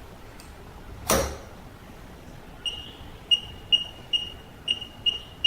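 Touch keypad of an access controller giving a short high beep for each key pressed, in a quick uneven run of about seven beeps as a code is keyed in. A single knock comes about a second in.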